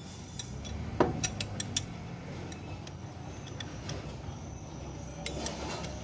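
Metal-on-metal clinks and knocks as a heavy forklift steering knuckle and king pin parts are shifted by hand: one sharp knock about a second in, followed at once by a quick run of light clinks, and a few more clinks later.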